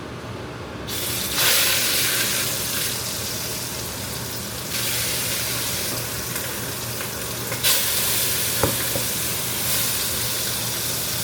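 Short ribs searing in a hot pan: a steady sizzle that swells sharply about a second in and steps louder again near 5 s and near 8 s.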